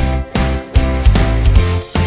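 Background music with a steady beat, about two and a half beats a second.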